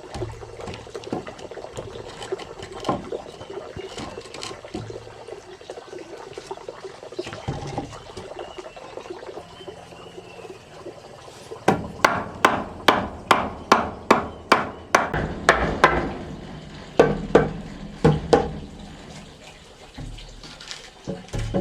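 Liquid sloshing and pouring with small clicks, then a quick run of sharp knocks, about three a second, and after a brief pause a few more.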